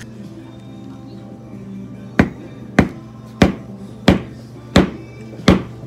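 Mallet striking a metal hole punch through leather on a stone slab: six sharp blows about two-thirds of a second apart, starting about two seconds in, punching a button hole. Background music plays under the blows.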